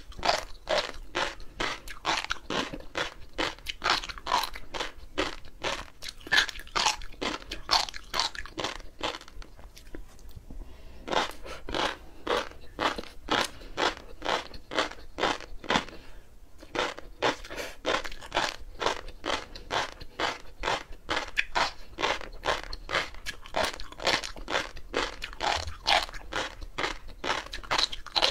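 Close-miked chewing of a mouthful of flying fish roe (tobiko): rapid crisp pops and crunches as the tiny eggs burst, with a short lull about ten seconds in.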